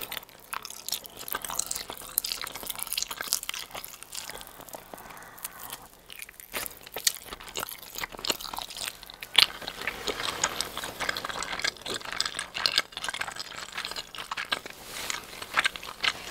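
Close-miked eating of a giant fried cheese ball: biting into the bread shell and chewing, with many crackly, crunchy clicks and wet mouth sounds from the stretchy cheese. There is a short lull about six seconds in.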